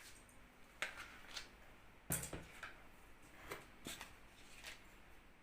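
Light, scattered clicks and scrapes of a spoon against a bowl as flour is spooned in, with a soft thump about two seconds in.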